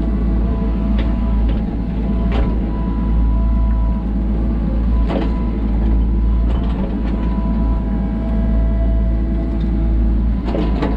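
Sany SY35U mini excavator's diesel engine running steadily under digging load, with its steady pitched hydraulic whine and a few sharp clanks from the bucket and boom as it works the soil.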